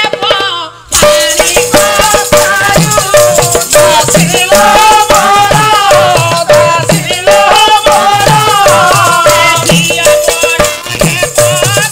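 Odia Pala ensemble music that starts abruptly about a second in. A melody line, which sounds like singing, runs over drum strokes and fast, rattling hand percussion.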